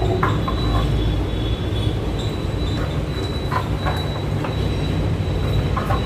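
Plastic packaging crinkling and rustling in short bursts as an item is worked out of its wrapping cover, over a steady low hum.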